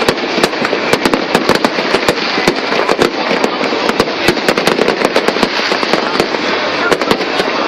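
A fireworks display going off: many sharp cracks and pops, several a second, over a dense continuous crackle.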